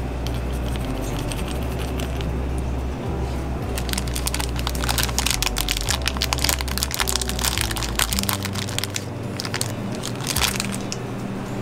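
Small hard toppings, chocolate chips and chocolate malt balls, dropping onto a filled crepe on a worktop, a dense run of small clicks and crackles from about four to eight seconds in and again briefly near the end.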